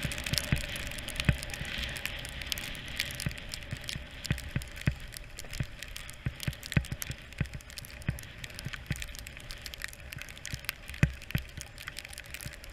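Skis sliding over snow: a hiss that is stronger in the first few seconds and then fades, with many irregular knocks and clicks throughout.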